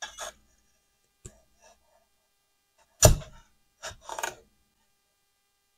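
Scraper prying resin prints off a 3D printer's build plate: short scrapes and clicks, with a loud knock about three seconds in.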